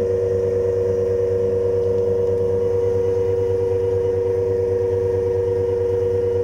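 Three-phase squirrel-cage induction motor fed from a variable-frequency drive, running at steady speed: a constant hum with a strong, steady high-pitched tone over it.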